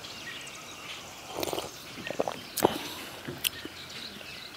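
A person sipping hot coffee from a cup: a short slurp about a second and a half in, then a few small sharp clicks of lips and cup.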